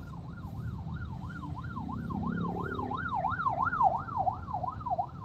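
Emergency vehicle siren in a fast yelp, sweeping up and down about three to four times a second, growing louder to a peak past the middle and then fading, over a low road rumble.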